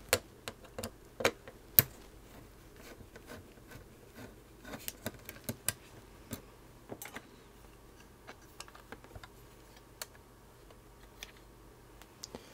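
Scattered light clicks and taps of a small screwdriver and metal screws as the two front-bezel screws come out of a Sony floppy drive. The louder clicks come in the first couple of seconds, then there is a cluster in the middle, and they thin out later.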